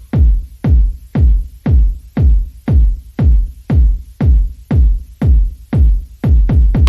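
Background electronic music with a steady, deep kick-drum beat of about two beats a second.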